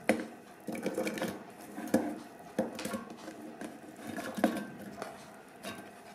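Chopped onion pieces tipped from a bowl into an empty stainless steel mixer-grinder jar: a run of light knocks and clatters as they land, the loudest about two seconds in and again near four and a half seconds.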